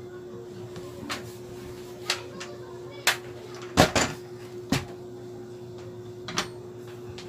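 Knocks and clacks from a notebook cooling pad being handled, its folding stand and frame knocking as it is turned over and set down: a string of separate clacks, the loudest pair near the middle.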